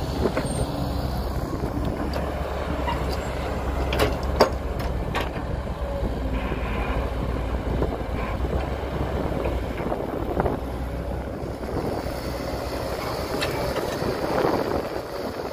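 Heavy diesel earthmoving machinery running steadily, with a few sharp knocks about four to five seconds in.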